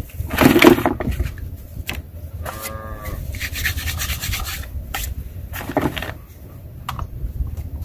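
Thick heat-shrink tubing being pried and peeled off a GPS tracker on a dog collar: bursts of rubbing and scraping plastic, loudest just under a second in. A short squeak comes about two and a half seconds in, and a few sharp clicks follow later.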